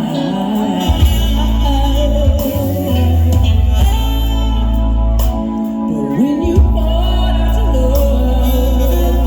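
Music with heavy sustained bass and a singing voice, in a gospel style.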